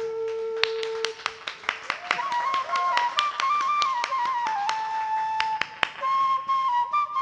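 A flute playing a solo melody: a long held note, then a phrase that climbs and steps through ornamented turns. A scattering of sharp taps sounds over it.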